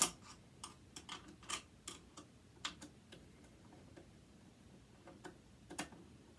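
Light, irregular clicks of a screwdriver working at a stubborn screw in a metal mechanism, close together for the first few seconds and then sparser.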